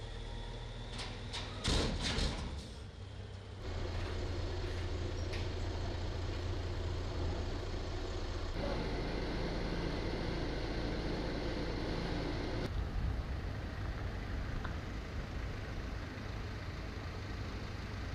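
Dump truck engine running with a cluster of loud metallic clanks about two seconds in. After that a steady low outdoor rumble carries on, changing abruptly a few times.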